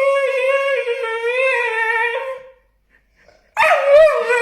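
A dog's long, wavering howl-like whine: one drawn-out call that stops about two and a half seconds in, then a second starting a second later. It is the dog grumbling in protest at being told to get up.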